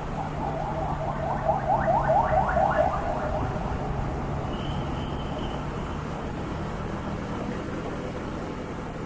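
Motorcycle running steadily in traffic, with engine hum and road noise. In the first three seconds a rapid series of rising chirps, about five a second, stands out above it and fades away.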